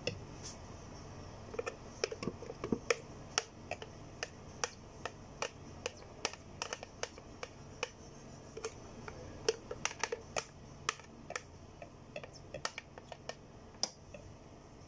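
Light, irregular clicking taps, two or three a second, of a hand and utensil against a plastic blender jar and a ceramic baking dish as thick cake batter is poured and coaxed out of the jar.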